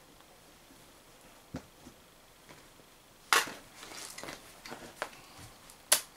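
Handling and loading clatter from an Umarex HDS68 launcher: a sharp loud click about three seconds in, a second or so of rattling and small clicks, then another sharp click near the end.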